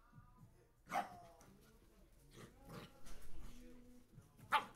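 Two puppies play-fighting, giving short, sharp yaps: one about a second in, a few around three seconds, and the loudest just before the end.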